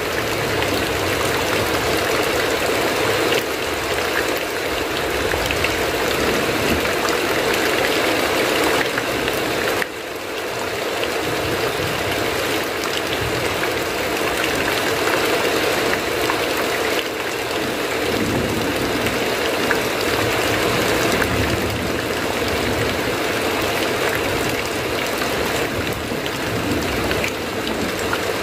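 Heavy rain falling steadily, a dense even hiss with a low rumbling undertone. The level dips briefly about ten seconds in.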